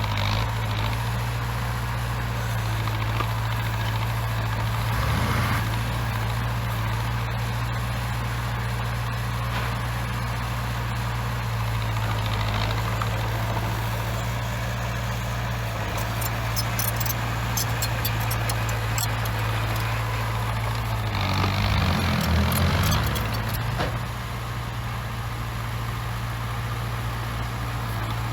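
Heavy diesel engine of earthmoving equipment running steadily, with a brief rise in revs between about 21 and 24 seconds in. Sharp metallic clicks and rattles come between about 16 and 20 seconds in.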